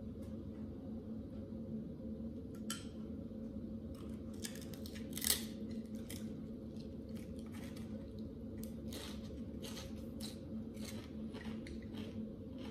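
Close-up crunching and chewing of a toasted sesame rice cracker (bánh tráng đa) topped with salad, a run of short crisp crackles with one louder crack about five seconds in as it is bitten. A steady low hum runs underneath.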